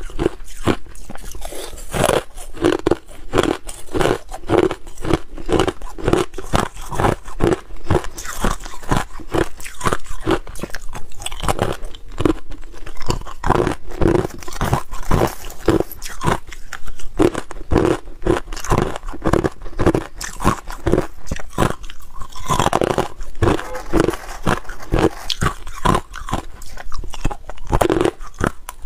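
A person chewing crushed ice close to the microphone: a steady run of hard crunches, about three a second.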